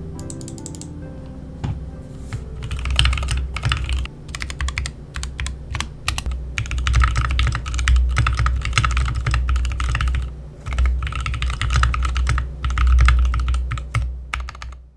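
Typing on a custom 60% mechanical keyboard with Gateron Milky Yellow linear switches and XDA keycaps in a walnut-veneered wooden case: rapid clacking keystrokes in bursts with short pauses between them.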